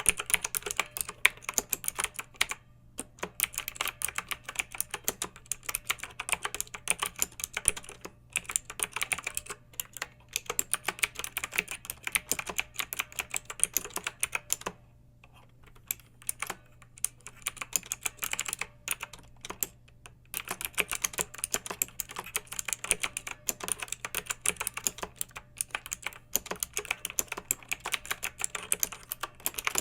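Clicky mechanical keyboard typing: quick runs of keystrokes, broken by short pauses about two and a half seconds in and around fifteen seconds in.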